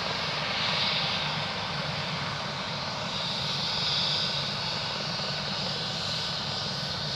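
MD 902 Explorer twin-turbine NOTAR helicopter running: a steady turbine hiss with a low rotor rumble that gently swells and fades a few times.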